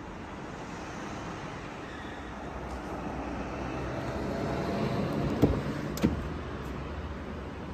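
Mercedes-Benz GLC's front door being opened: two sharp clicks from the handle and latch, about five and a half and six seconds in, over a steady hiss.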